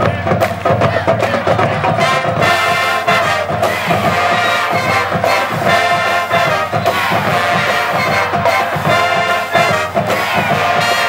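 Marching band music: drums keep a steady beat, and brass and saxophones come in about two seconds in, playing in repeated phrases.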